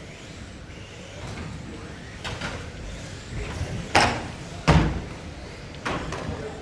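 GT12 1/12-scale electric RC racing cars lapping an indoor track, with soft tyre swishes as they pass. Sharp clattering knocks come about four seconds in, again under a second later (the loudest), and once more near the end, typical of the cars hitting the track barriers.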